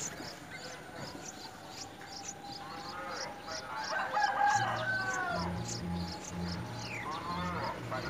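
Bulbul nestlings begging: a fast, steady string of thin, high chips, about three a second, with a louder, lower, drawn-out call around four seconds in.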